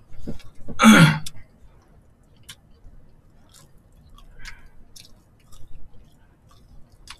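People chewing food close to the microphone, with scattered wet mouth clicks and smacks. About a second in there is a brief, louder voiced sound that falls in pitch.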